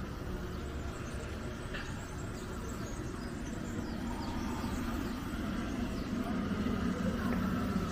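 Steady low engine drone under an outdoor noise bed, with faint high chirps; it grows a little louder toward the end.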